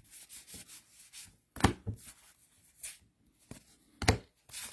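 Trading cards handled and flipped through by hand: soft rubbing and sliding of card stock, with a few sharp taps as cards are set down or snapped together.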